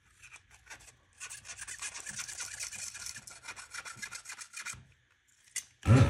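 Rapid scratchy scrubbing, about eight strokes a second after a few slower scrapes, as a soldering iron's tip is cleaned off. It stops about a second before a loud, steady hum starts right at the end.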